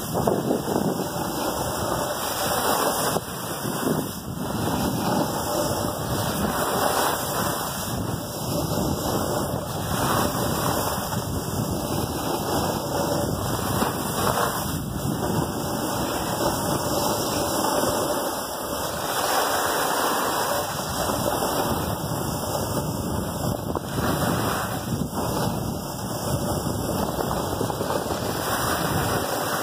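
Steady rushing noise of wind buffeting the microphone together with the hiss and scrape of sliding downhill over packed snow, rising and falling a little without pause.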